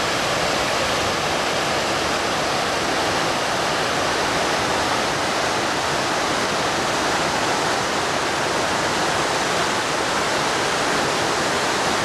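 Waterfall rushing steadily: whitewater pouring over rock ledges in several chutes, an even, unbroken roar of falling water.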